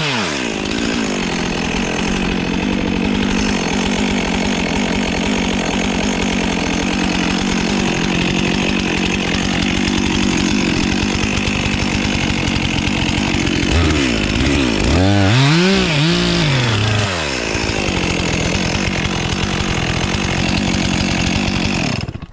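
Stihl chainsaw cutting into the base of a standing tree trunk, its engine held at high speed under load. About two-thirds of the way through, the engine speed rises and falls several times, then the saw settles back into the cut and cuts off just before the end.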